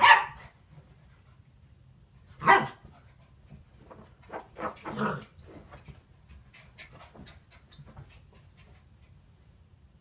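Cairn terrier barking: a loud bark right at the start and another about two and a half seconds in, then a few softer yips around four to five seconds in, followed by faint panting.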